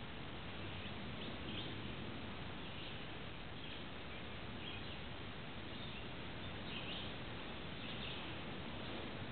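Faint, short, high bird chirps at irregular intervals over a steady hiss.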